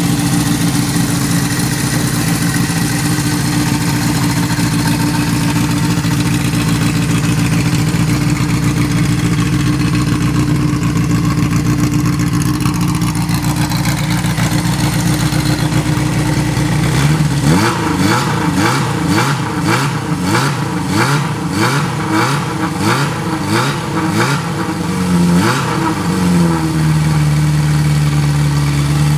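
1975 Honda CB750's air-cooled inline-four engine idling steadily through its four black exhaust pipes. A little over halfway through it is blipped in a quick series of revs, well over one a second, for about nine seconds, then settles back to idle.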